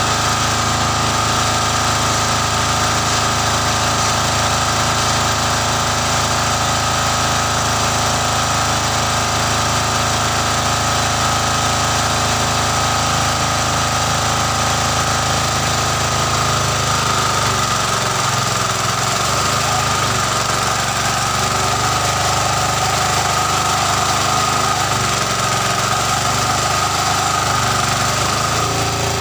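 Stationary diesel engine running steadily, driving a 4-inch self-priming centrifugal water pump under test. About two-thirds of the way through, the sound turns rougher as the pump delivers a full gush of water from its discharge pipe.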